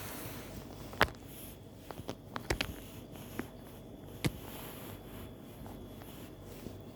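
Kittens scuffling on a hard surface. A few sharp taps and knocks stand out against a quiet hiss: the loudest about a second in, a quick cluster around two and a half seconds, and one more after four seconds.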